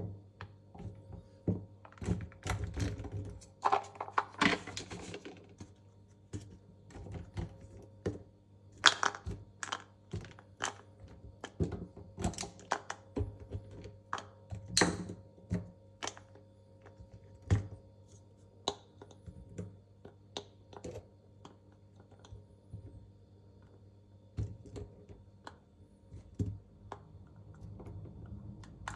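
Velvet sticks being handled and sorted by colour: irregular light clicks and thunks as they are set down and knock against each other, with a short rustling stretch about four seconds in.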